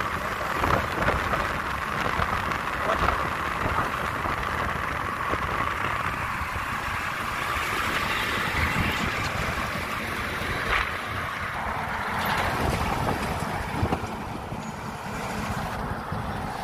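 Steady traffic noise of heavy trucks running on a highway: low engine rumble with tyre and wind noise, heard while travelling alongside them. The sound changes in character about two-thirds of the way through and again near the end.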